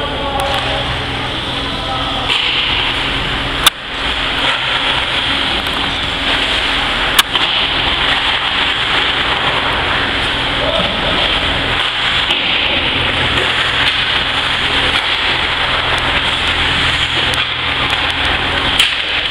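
Ice hockey play on an indoor rink: a steady scraping hiss of skates on the ice over a low steady hum, with three sharp cracks, about four seconds in, about seven seconds in and near the end.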